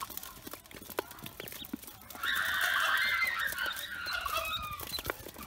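A group of Pekin ducklings peeping, a dense high chorus that starts loud about two seconds in, over scattered clicks of bills tapping a feeding bowl.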